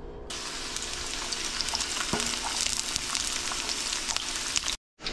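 Chopped onion tossed into hot cooking oil in a pan, sizzling and crackling steadily. The sizzle starts suddenly about a third of a second in and cuts off abruptly near the end.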